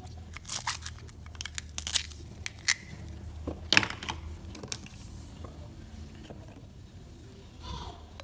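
Toy food being cut: a run of short, crisp cracks and tearing sounds over the first four seconds or so, the loudest a little under four seconds in, then quieter handling.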